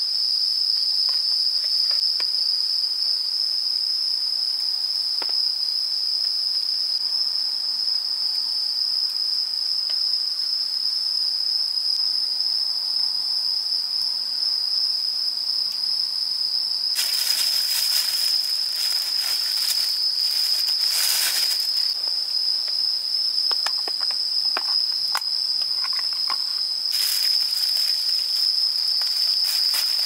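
Night insects trilling in one high, unbroken tone, with a plastic bag crinkling for several seconds after the middle and again near the end.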